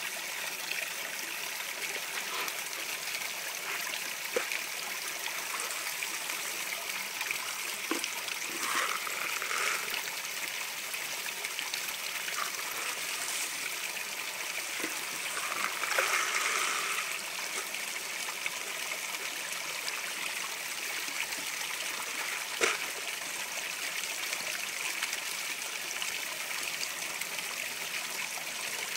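Steady trickling and running water of a koi pond, with a few brief splashes at the surface where the koi crowd. One splashing swell is louder about halfway through.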